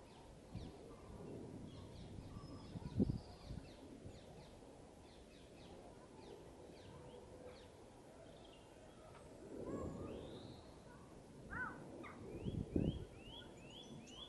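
Small garden songbirds chirping and calling in short high notes, with a quick run of about five rising notes near the end. A few low thumps and rumbles come in between, one about three seconds in and others later.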